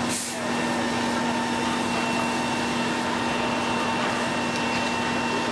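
Steady drone of heavy diesel machinery running at constant speed, with a hum that holds one pitch throughout.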